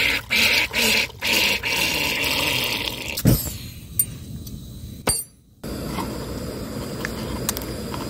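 Water poured from a container into a camping pot, splashing in spurts with short breaks for about three seconds, then a thump and a couple of clicks. After a short break a steady rushing noise follows.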